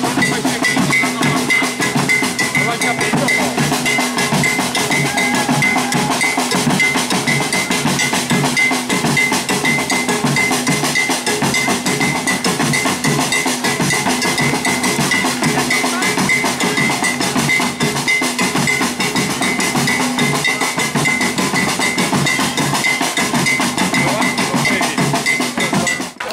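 Brazilian percussion band drumming a steady, dense rhythm, with a steady high tone held over the drums.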